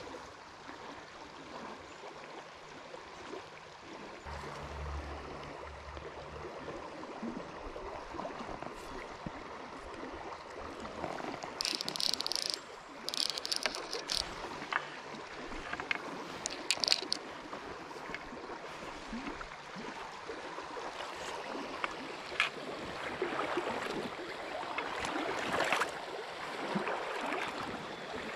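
Low creek water flowing and rippling over stones, a steady watery hiss, with a few short high rasps near the middle.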